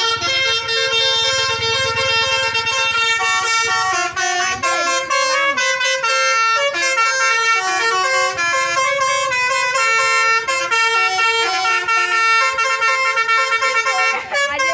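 Bus telolet horn playing a tune: several horn trumpets sound together in chords that step from note to note, with short breaks about four seconds in and near the end.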